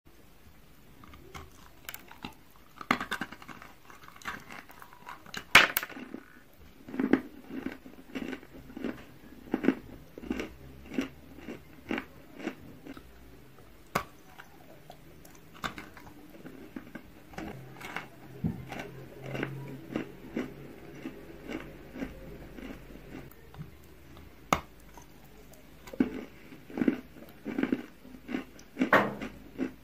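Biting into and chewing a block of chalk close to the mouth: sharp, irregular crunches with softer chewing between them, the loudest about five and a half seconds in.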